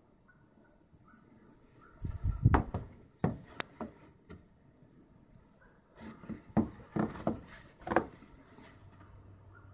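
Footsteps and bumps as someone walks off a porch and through deep snow, coming in two irregular bunches, about two seconds in and about six seconds in.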